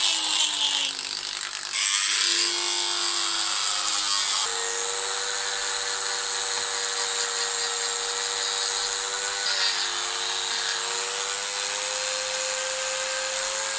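Handheld Dremel-type rotary tool with a carving burr, power carving wood: a continuous motor whine with grinding noise. Its pitch shifts up and down several times as the burr bites into the wood and eases off.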